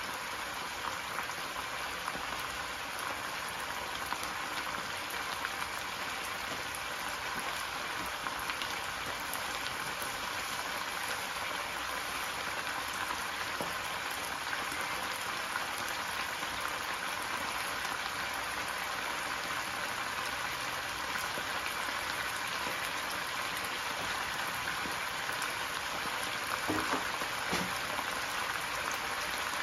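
Diced pork simmering in a wok in a little water and oil: a steady bubbling sizzle.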